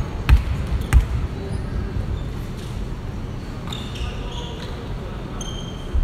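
A volleyball is bounced twice on a hardwood gym floor, about half a second apart, near the start, ending a steady run of bounces. After that the hall is quieter, with a few short high squeaks.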